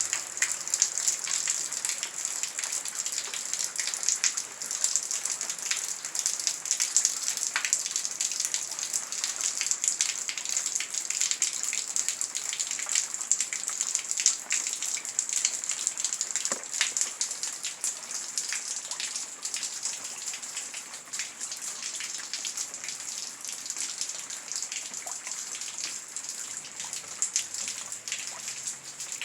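Heavy rain falling steadily: a dense hiss of drops with many sharp individual impacts ticking through it.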